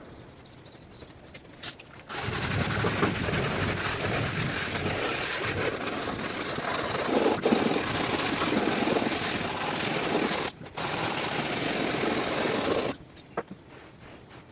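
A machine running with a rough, noisy sound. It starts about two seconds in, cuts out briefly near ten and a half seconds, runs again, and stops near thirteen seconds.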